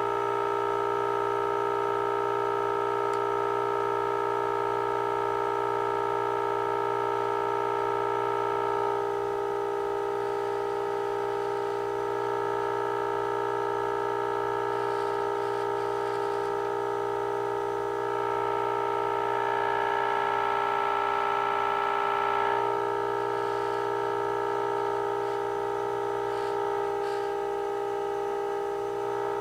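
A 1948 Emerson AA5 tube radio's speaker plays the steady, buzzy test tone from an alignment signal generator. Its level and brightness shift as the IF transformer slugs are tuned for peak output: it drops slightly about a third of the way in, then swells louder and brighter for a few seconds past the middle.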